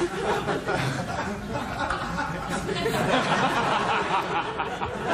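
Studio audience laughing and snickering, many voices overlapping in a steady stream.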